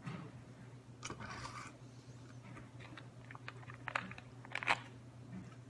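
Close-up chewing of a mouthful of oatmeal with crushed almonds and blueberries: soft crunches and wet mouth clicks, clustered about a second in and again from about three seconds in. A steady low hum runs underneath.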